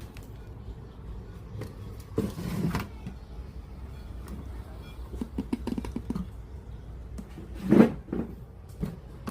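Scattered clicks and knocks over a low steady hum, with a louder knock about eight seconds in.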